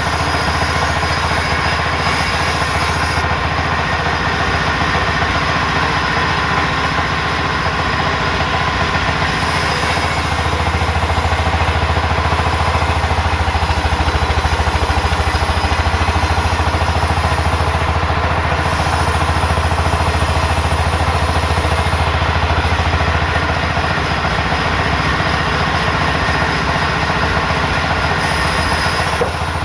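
Sawmill machinery running steadily: a loud continuous mechanical hum with a dense grinding noise over it, growing a little louder from about ten seconds in.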